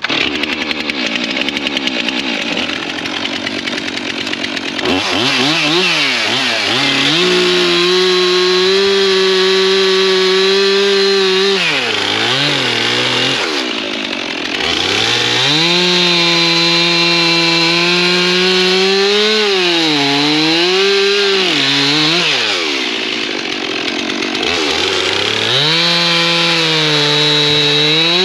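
Chainsaw running at high speed while cutting sawmill slabs into firewood lengths. Its pitch holds steady through the cuts and sags and climbs back again several times as the throttle is eased between cuts.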